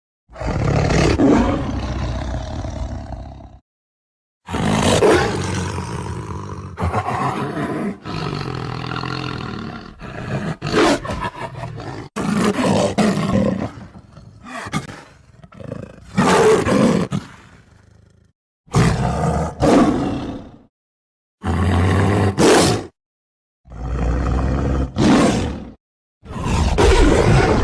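Tiger roaring: a series of about nine separate roars, each one to three seconds long, cut apart by short silent gaps.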